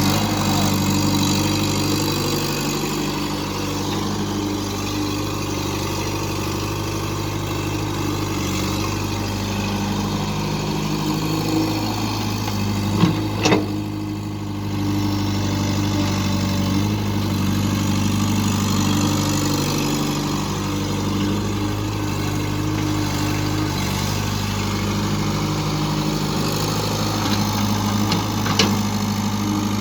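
JCB 3DX backhoe loader's diesel engine running steadily while it digs and loads pond mud, its note shifting several times as the work goes on. Sharp knocks about 13 seconds in and again near the end.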